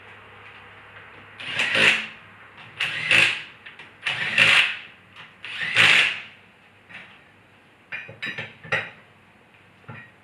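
Power impact wrench run on wheel lug nuts in four short bursts, one after another, followed by a few light metallic clicks.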